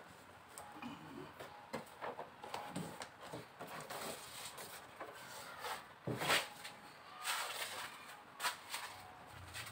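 Hands pressing and smoothing a foil-faced heat insulation sheet onto the underside of a car bonnet: irregular crinkling, rubbing and light taps, with a louder rustle about six seconds in.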